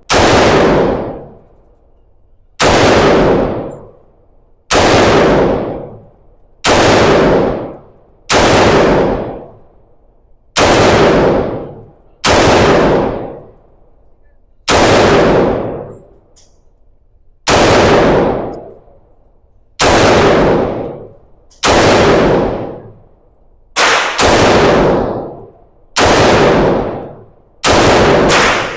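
Gunshots fired one at a time in slow, steady succession, about sixteen shots roughly every one and a half to two seconds, each followed by a long echoing decay.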